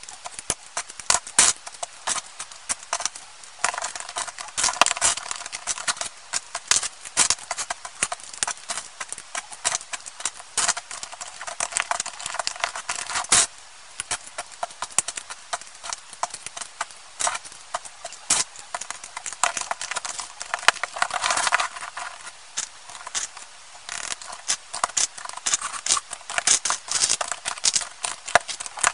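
Plastic Lego bricks clicking, snapping together and clattering as they are handled and pressed onto each other, sped up to triple speed into a rapid, irregular patter of small sharp clicks.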